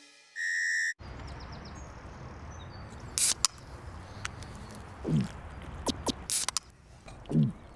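A short electronic beep, then steady outdoor background noise with scattered short animal calls, several of them quick downward swoops.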